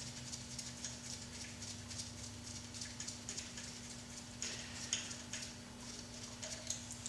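Light, scattered metallic ticks and taps as the crankshaft vibration damper is worked loose and slid off the engine's front, with a few slightly stronger clicks about two-thirds of the way through. A steady low hum runs underneath.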